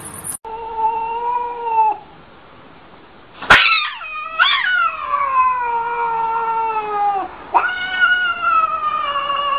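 Domestic cat yowling in three long, drawn-out wails, the longest in the middle sliding down in pitch, with a sharp click just before it. A defensive caterwaul from a cat standing with its back arched.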